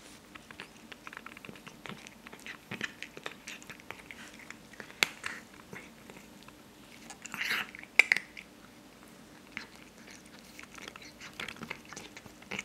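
Scottish Fold cat crunching dry kibble: a quick irregular run of small crisp crunches, with a few louder sharp cracks about five and eight seconds in.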